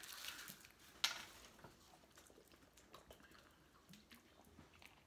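Almost quiet, with one sharp click about a second in and faint scattered small clicks and handling noises after it.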